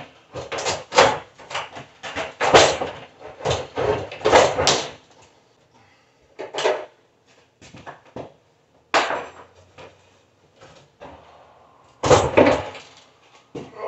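Sheet-metal housing of an old 1970s electric cooktop clunking and scraping against the wooden countertop as it is worked loose and lifted out of its cutout. There is a busy run of knocks for the first few seconds, then scattered knocks, and a last clatter near the end.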